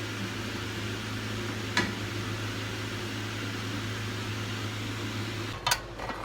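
A steady low electrical hum with an even hiss, as from a fan or kitchen appliance running, with one sharp click a little under two seconds in. Near the end the hum drops away and a few louder knocks begin.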